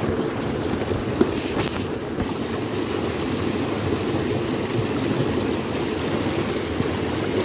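Water rushing steadily into a pond over a concrete edge, with a few light splashes in the first two seconds.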